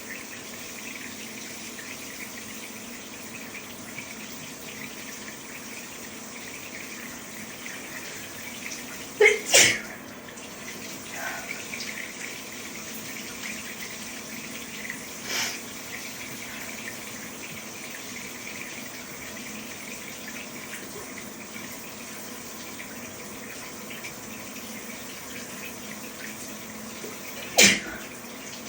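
Repeated allergy sneezes in the shower over the steady hiss of running shower water: two sneezes in quick succession about nine seconds in and one more near the end, with a fainter sharp sound in between.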